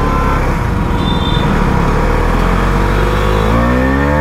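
Husqvarna 250's single-cylinder engine with an aftermarket underbelly exhaust, idling steadily at a stop, then revving up as the bike pulls away about three and a half seconds in.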